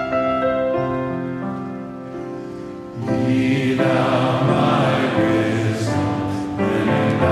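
Music: held keyboard chords slowly fading, then a choir comes in singing about three seconds in, louder and fuller.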